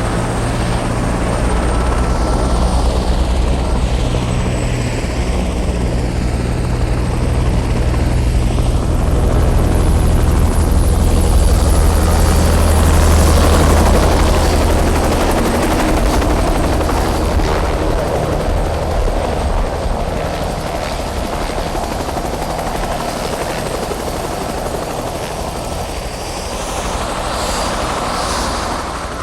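Helicopter rotor and engine running steadily, growing louder to a peak about halfway through, then slowly fading.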